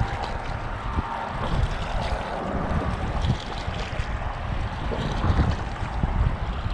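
Wind buffeting the microphone in uneven gusts, with small waves lapping against shoreline rocks.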